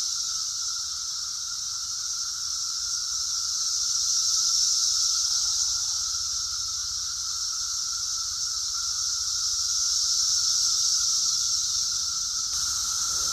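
Dense, loud chorus of periodical cicadas: a continuous high buzzing drone with a lower whirring tone beneath it, swelling and easing slowly.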